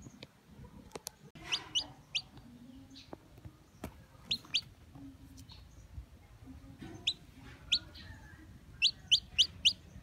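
Newly hatched chicken chick peeping: short, high, rising peeps in small clusters, ending with a quick run of four. A couple of sharp clicks come about a second in.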